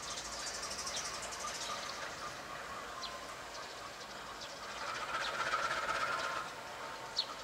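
Train hauled by a CC 201 diesel-electric locomotive running on the line, a steady rumble and rail noise that swells about five seconds in. Short high chirps are heard now and then.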